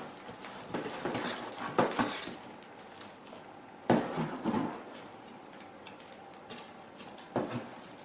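Parts and packaging being handled and taken out of a box: rustling and light clattering knocks in irregular bursts, busiest in the first two seconds, again around four seconds in, and briefly near the end.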